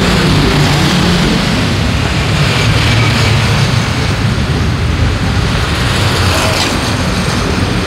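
City street traffic: a steady rumble of passing vehicles, motorcycles among them.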